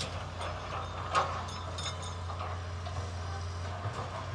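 Steady low hum of construction machinery engines running, with one sharp metallic clank about a second in and a few faint clicks.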